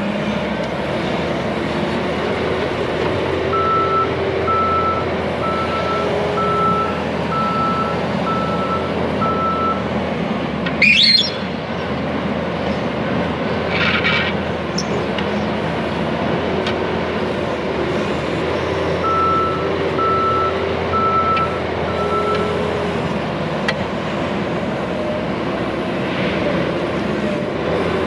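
Hyundai compact track loader's diesel engine running steadily while it grades dirt, its reverse alarm beeping in two runs of evenly spaced beeps, about one and a half a second, as it backs up. A brief loud rising squeal about eleven seconds in.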